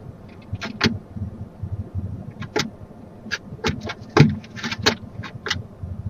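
Barn owl moving about inside a wooden nest box: about a dozen irregular short scrapes and knocks, the loudest about four seconds in, over a low rumble.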